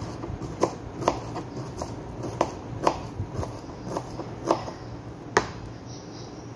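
Kitchen knife chopping onion on a cutting board: uneven knocks of the blade on the board, about two a second, stopping near the end.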